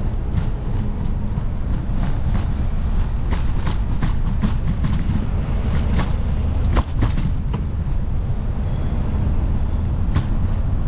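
Wind rumbling on a GoPro's microphone while cycling, with scattered clicks and rattles from the bicycle going over rough pavement, busiest in the middle.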